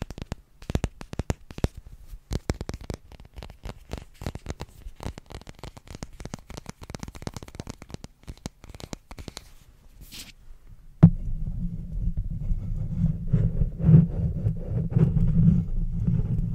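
Fingernails tapping quickly on a small flat magnet held close to the microphone. About two-thirds of the way in, this changes suddenly to a louder low rumbling of hands rubbing and handling the microphone itself.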